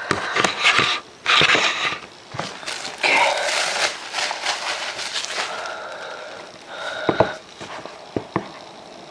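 Packaging being handled and opened: bursts of rustling and scraping in the first few seconds, then quieter handling with a few sharp clicks near the end.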